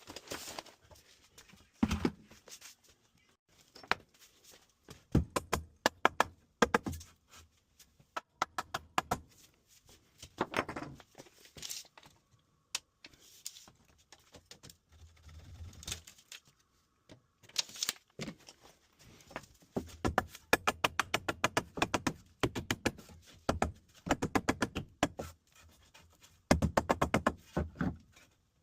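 Repeated sharp taps and knocks, with runs of rapid clicking at about ten strokes a second in the second half.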